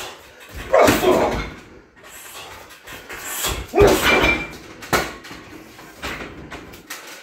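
Kicks and knees landing on a 60 kg Everlast heavy bag: two heavy thuds about one and four seconds in, each followed by the bag and its steel stand rattling. Lighter knocks follow as the bag swings on the stand.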